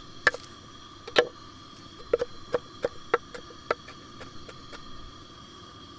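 Chef's knife chopping fresh parsley on a wooden cutting board: a dozen or so irregular sharp taps of the blade on the wood. Two strong taps in the first second and a half, then quicker ones, thinning out near the end.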